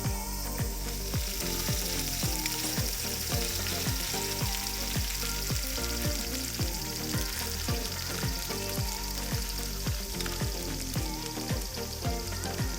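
Background music with a steady beat, with the hiss of food sizzling in a pan or on a grill laid over it. The sizzle starts about a second in and stops near the end.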